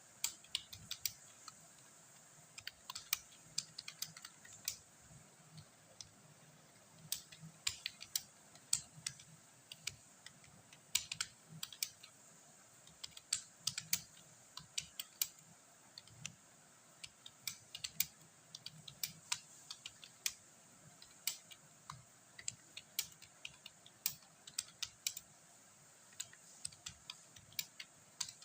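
Computer keyboard being typed on: quick irregular runs of key clicks broken by short pauses, over a faint steady hiss.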